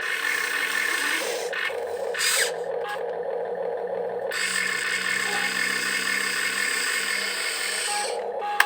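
Electric gear motors of a toy RC construction machine whirring, stopping and starting several times in short runs, with a sharp click near the end.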